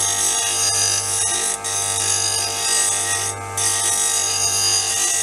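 Bench grinder running with a steel turning chisel held against its abrasive wheel: a steady motor hum under the hiss of steel being ground, with the hiss dropping out briefly twice as the tool eases off the wheel. The wheel is now working the bevel right at the cutting edge, the final stage of sharpening.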